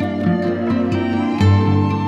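Background music: a calm instrumental with held notes changing in a slow, even rhythm.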